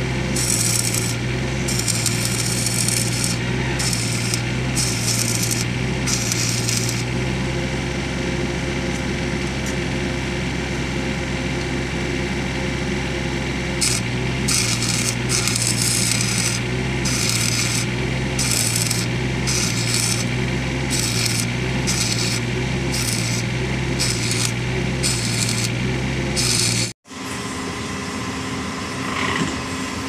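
Electric arc welding on an excavator's track sprocket: a crackling, sizzling arc over a steady low hum, struck and broken again and again in runs of about a second, with a steadier stretch in the middle. It stops abruptly near the end.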